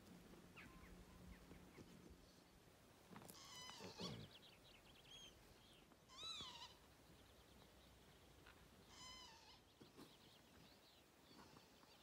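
Three faint animal calls about three seconds apart, each a short cry that rises and falls in pitch, with faint small-bird chirps around them.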